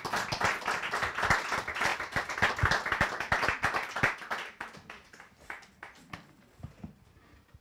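Audience applauding, dying away about five seconds in to a few scattered light taps.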